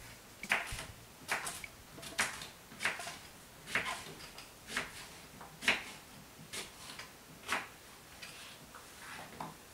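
Kitchen knife chopping a courgette into chunks on a wooden chopping board: a sharp knock of the blade through the flesh onto the board about once a second, around ten strokes, getting fainter near the end.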